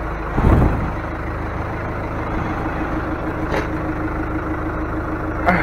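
Heavy diesel engine idling steadily, with a low thud about half a second in.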